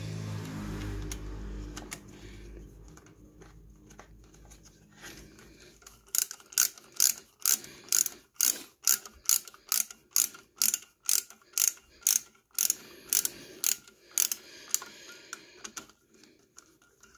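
Ratchet wrench clicking on a socket extension as the clutch spring bolts on a Hyosung GD250N's pressure plate are turned: a steady run of sharp clicks, about two a second, starting about six seconds in and stopping shortly before the end.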